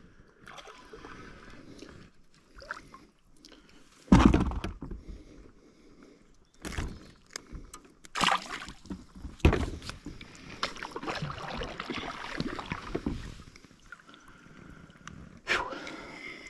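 Knocks and bumps on a plastic Jackson fishing kayak's hull, with gear being handled and shifted in between; the loudest thump comes about four seconds in, followed by several lighter knocks.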